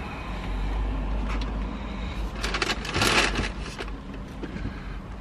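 Rustling and crinkling of a fast-food burger's cardboard box and packaging being handled, with small clicks and one louder crackling burst about two and a half to three and a half seconds in, over a low steady rumble.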